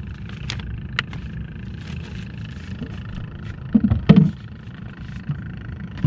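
Small fishing boat's engine idling steadily, with a few sharp clicks and a louder short knock and voice-like sound about four seconds in.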